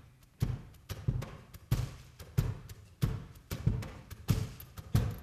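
Drum kit playing a steady beat on its own, one thump about every two-thirds of a second.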